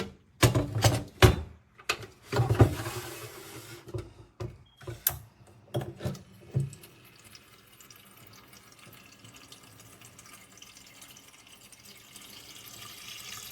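Water running and splashing into a plastic filter pitcher, with a quick series of knocks and clatters over the first few seconds, then a faint steady trickle.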